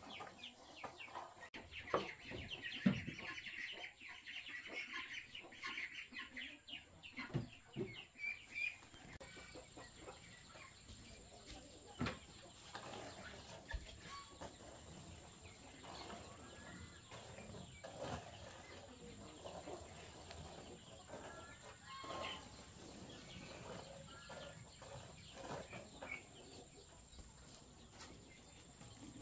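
Chickens clucking in scattered short calls, with a few sharp knocks, the loudest in the first few seconds.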